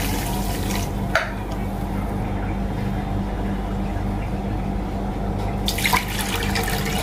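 Water poured from a cup into a pot of sugar for syrup, in two pours: one at the start and a second near the end, with a short clink about a second in. A steady low hum runs underneath.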